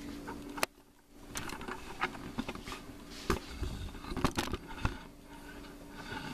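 Handling noise from a phone camera being turned around and set down: a sharp click about half a second in, a brief dropout, then several knocks, bumps and rubbing as it is handled and placed.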